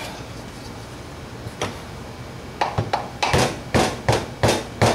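Light tapping driving a piston up through its cylinder on a VW 1600 engine to expose the wrist-pin hole: after a quiet stretch with one small click, a steady run of about eight sharp taps, roughly three a second, begins about halfway through.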